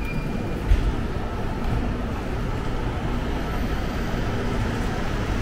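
Steady rumbling background noise of an underground train station, with one dull thump just under a second in.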